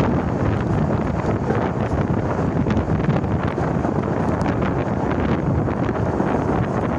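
Wind buffeting the microphone over the steady low rumble of a moving train.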